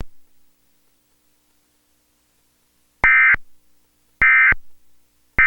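Emergency Alert System end-of-message (EOM) data header: three short bursts of shrill two-tone digital data, about a second apart, after about three seconds of quiet. It signals the end of the EAS test message.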